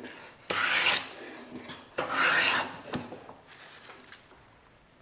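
Hand plane taking strokes along a Paulownia board: two strong rasping cuts of about half a second each, one about half a second in and one about two seconds in, then a fainter third stroke.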